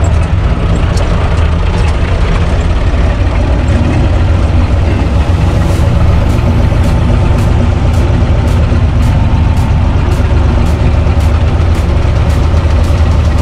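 UTB 445 DT tractor's four-cylinder diesel engine running steadily under way, heard from inside the cab, with a light rattle at an even rhythm from about halfway through.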